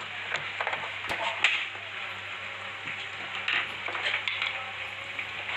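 Plastic knocks and scraping clatter as an Epson L130 ink-tank printer's casing is handled, turned upright and set down on a bench, with a sharp knock about a second and a half in.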